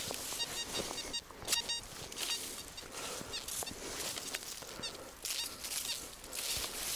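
Footsteps crunching in snow, in repeated bursts of crisp noise, with several short high-pitched chirping tones in the first few seconds.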